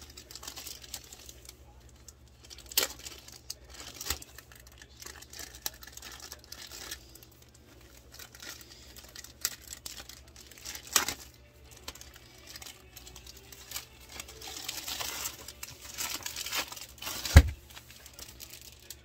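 Clear cellophane wrap crinkling and tearing as it is pulled off a rolled diamond painting canvas, with scattered sharp crackles and a longer rustle in the latter half. A single thump near the end.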